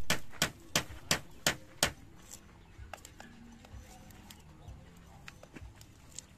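Knocking on bamboo: six sharp strikes in quick succession, about three a second, then faint scattered clicks and taps.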